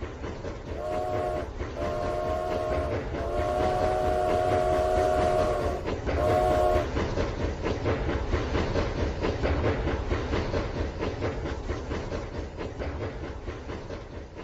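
Rail King toy train running on its track with a steady, fast clicking rattle, while its horn sound effect blows four times in the first seven seconds, the third blast the longest.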